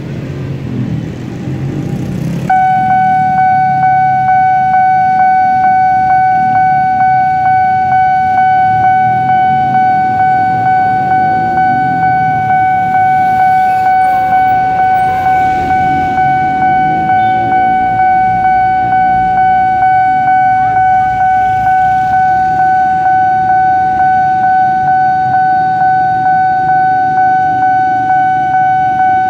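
Railway level-crossing warning alarm sounding, starting about two and a half seconds in: a steady high-pitched tone pulsing about twice a second, warning that a train is approaching. Road traffic and motorbikes rumble underneath.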